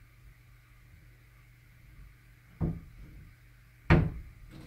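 Two sharp, heavy thuds about a second and a half apart, the second louder, over a steady low hum.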